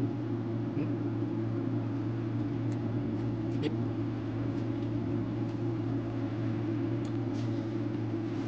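Steady low machine hum, even and unchanging, with a few faint clicks and smacks of chewing and hand-eating on top.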